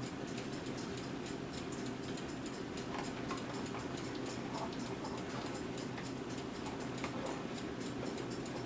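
Smith-Corona Corsair Deluxe manual portable typewriter being typed on: a run of sharp key strikes, several a second.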